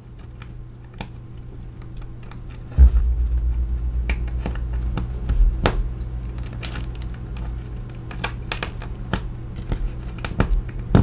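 Irregular small clicks and taps of fingers handling and pressing the ear speaker assembly into place on an iPhone X replacement screen. A thump comes about three seconds in, followed by a steady low rumble underneath the clicks.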